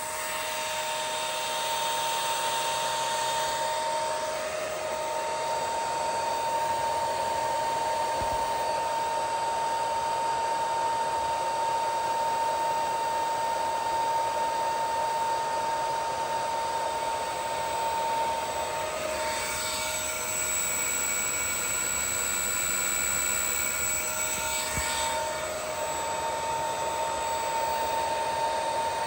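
Allen-Bradley PowerFlex 755 drive running on test after a heatsink temperature fault repair: a steady blowing whir with a constant whine, likely from its heatsink cooling fan. About two-thirds of the way through the tones glide in pitch, and higher tones join until they glide back about five seconds later.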